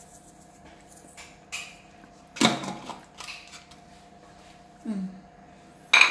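Dishes and kitchen utensils clinking and knocking: a few sharp knocks, the loudest a little over two seconds in, then two clinks near the end.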